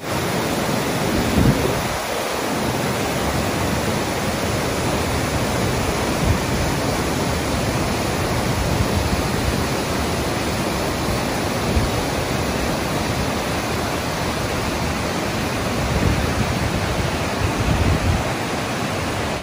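Waterfall pouring through a narrow rock gorge: a steady, loud rush of falling water, with a few brief low thumps.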